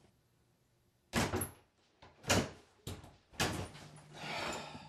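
A door being opened: four short knocks and thuds, the first about a second in, then a brief rush of air near the end.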